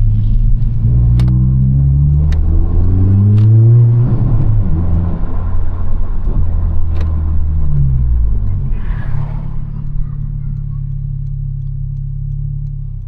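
A 2022 Honda Civic Si's turbocharged four-cylinder engine pulling under acceleration. The revs climb for about four seconds, drop at a gear change, and then settle into a steady drone.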